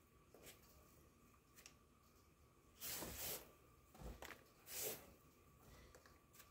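Near silence broken by a few soft rustles and swishes of a gloved hand brushing and scooping damp worm compost, the longest about three seconds in and another near five seconds.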